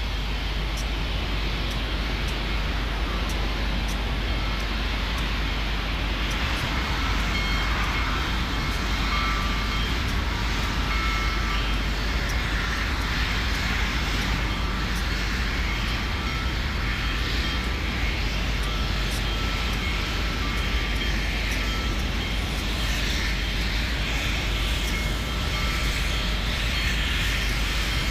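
Union Pacific Big Boy 4014 steam locomotive working up a mountain grade: a steady, unbroken roar of exhaust and running gear.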